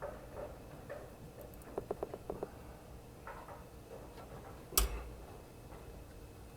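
Light clicking from hand work on a truck's oil drain plug: a quick run of about half a dozen light clicks, then one sharp metallic knock just before five seconds in.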